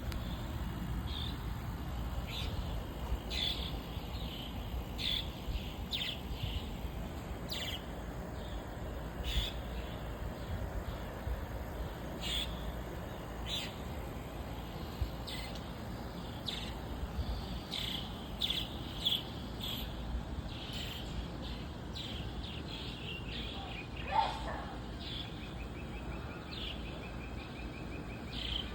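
Swallows twittering: many short, high chirps at irregular intervals over a steady low rumble, with one louder, lower call late on.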